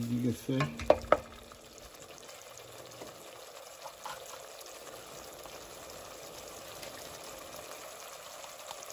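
Chopped onions sizzling steadily in oil and water in a stainless steel pot. In the first second or so a wooden spoon stirs them and knocks twice against the pot.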